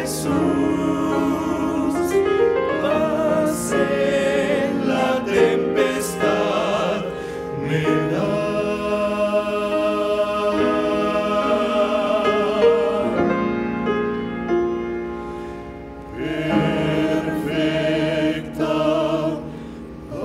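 Male vocal octet singing a hymn in close harmony, holding long notes with vibrato. The voices fade about two-thirds of the way through, then swell back in for another phrase.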